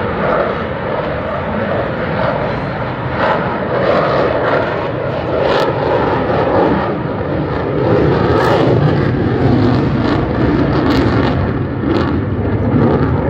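Aerobatic airplane's engine running overhead, a loud steady drone that grows a little louder about eight seconds in.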